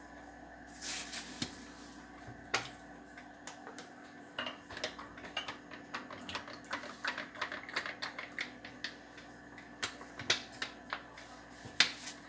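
Scattered light clicks and taps from handling a plastic bottle of cooking oil and a glass measuring cup on a stone countertop, over a faint steady hum.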